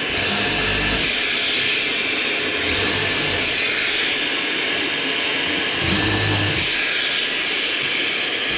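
Dust extractor running steadily while a cordless impact driver bores countersunk screw holes through plywood with a hex-shank drill cutter. The holes are drilled one after another, about every three seconds, each a short, lower-pitched burst of drilling over the extractor.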